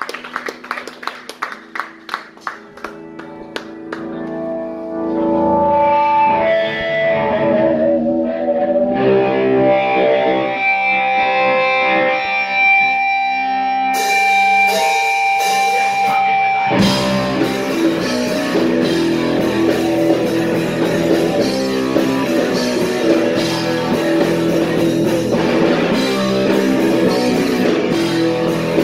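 Live punk rock band: an electric guitar opens a song alone with ringing held notes. The drums and the full band come in a little past halfway.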